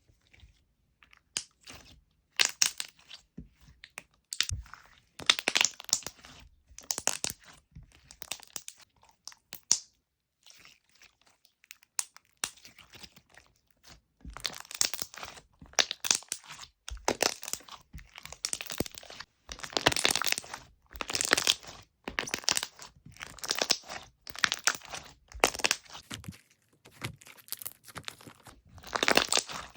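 Soft slime being squeezed, pressed and stretched by hand, making repeated crackly, crinkling bursts. They come sparsely at first, then about once a second from a third of the way in.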